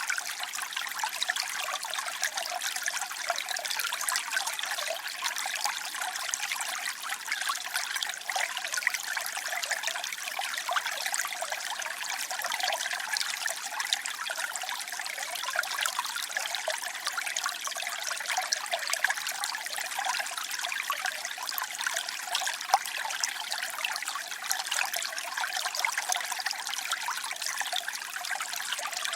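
Water trickling and splashing in a steady, continuous babble, with lots of small bubbling crackles and little depth below.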